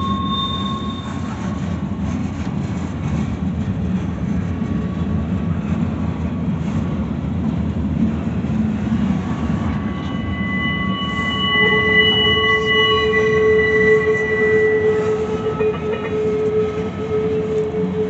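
Freight cars rolling past close by: a steady rumble of steel wheels on the rail. Partway through, thin high steady squeals set in from wheel flanges grinding against the rail and grow loudest a few seconds later.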